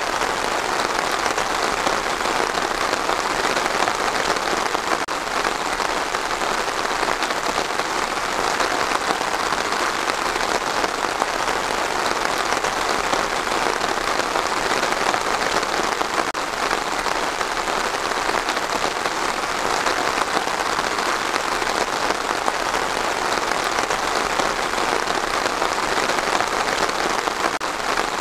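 Steady rain falling, an even, unbroken hiss that does not let up or change.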